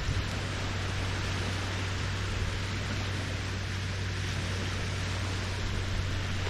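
Small Lake Huron waves lapping the shore, a steady even hiss, with a low steady hum underneath.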